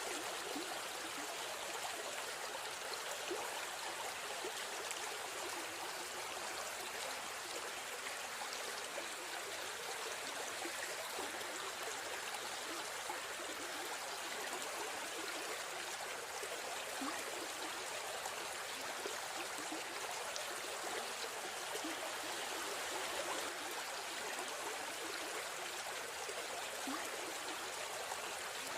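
River stream flowing: steady rushing and trickling of water over stones, even throughout.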